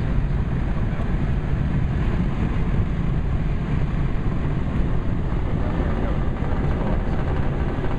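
Allegro light-sport aircraft's engine and propeller running steadily in flight, with airflow noise, a loud, even drone.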